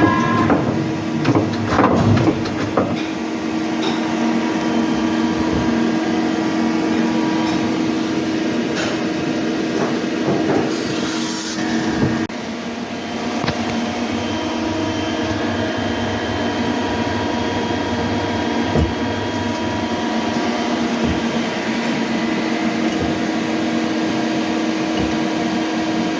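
Hyundai HIT 8 S CNC lathe running: a steady machine hum with several steady tones and occasional clicks and knocks. One of the tones stops about halfway through, with a slight drop in level, and comes back near the end.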